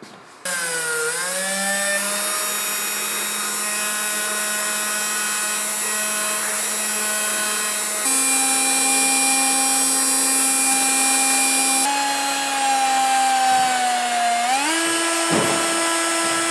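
Small electric power tool motor whining at speed, starting about half a second in; its pitch steps up partway through, sags as it takes load, then jumps to a higher speed near the end.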